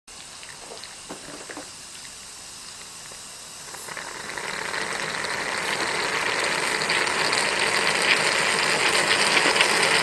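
Mignon 2 Tazze cast-aluminium stove-top espresso maker hissing and gurgling as brewed coffee and steam spurt from its spout into the cup; the hiss swells steadily louder from about four seconds in.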